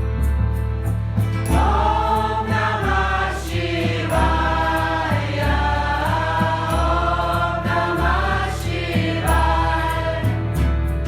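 Devotional mantra music: several voices singing a chant over a bass line that steps through notes and a regular light percussion beat.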